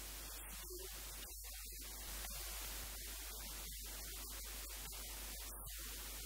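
Steady static hiss with a low hum underneath, broken by brief patchy dropouts.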